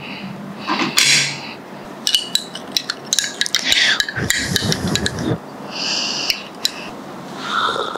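Metal teaspoon clinking and scraping against a small glass cup of coffee, with a few short slurping sips taken from the spoon.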